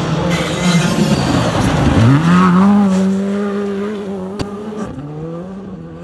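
Škoda Fabia Rally2 car's turbocharged four-cylinder engine at high revs on a gravel stage, with tyres scrabbling and spraying gravel at first. About two seconds in the revs dip sharply and climb again, then the engine holds a steady note and fades as the car pulls away.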